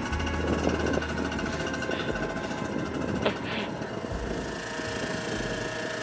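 A small engine running steadily with a fast, even rattle. It is most likely the motor driving the fuel transfer from the boat alongside.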